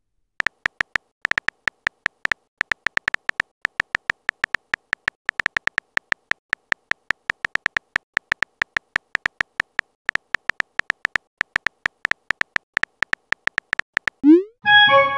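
Phone keyboard typing sound effect: a fast, uneven run of short clicks, several a second, each with a faint beep, one click per letter typed into a chat message. Near the end a short rising chime with a few tones, the message-sent sound.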